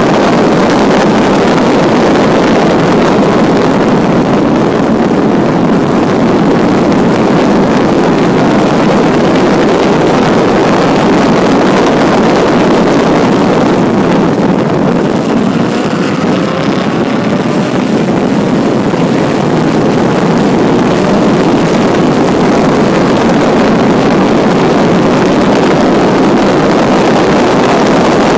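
1952 Jaguar XK120's straight-six engine running under race load at speed, heard from a hood-mounted camera with heavy wind rush on the microphone. The sound dips briefly about halfway through as the car slows for a corner, then builds again as it accelerates.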